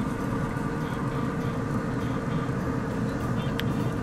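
Pellet grill running: a steady hum from its fan with a faint steady whine over it, and one short click near the end.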